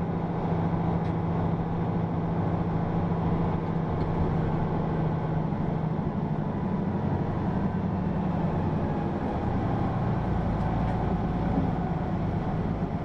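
Hino PA-KR234J1 city bus heard from inside the cabin, its diesel engine running with a steady low hum. The engine note changes about five or six seconds in and stays shifted through the rest.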